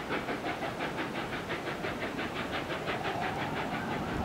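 Steam locomotive 60163 Tornado, a three-cylinder Peppercorn A1 Pacific, making a rhythmic steam hiss of about six beats a second that fades about three seconds in, as a faint rising tone comes up.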